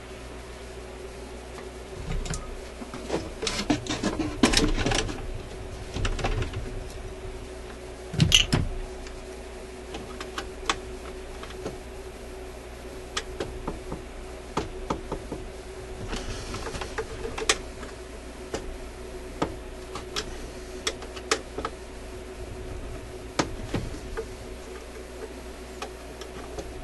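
Small metal tool clicking and scraping against a record changer's metal mechanism while prying at a retaining clip: scattered light clicks, with denser, louder clattering from about two to six seconds in and again around eight seconds.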